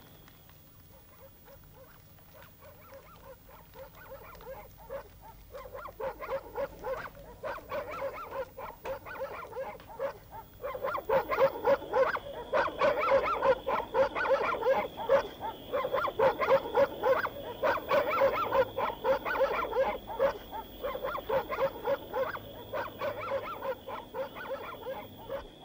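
An animal's rapid, repeated calls, faint at first and growing louder about ten seconds in, then going on as a dense, excited chatter.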